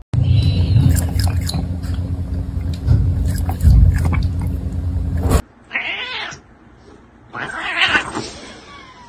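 A cat meowing twice, each call about a second long, after a few seconds of loud low noise with scattered clicks that cuts off abruptly.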